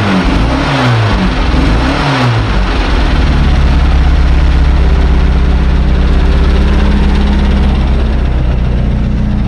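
Classic Mini's A-series four-cylinder petrol engine blipped twice in the first couple of seconds, revs rising and falling each time, then idling steadily.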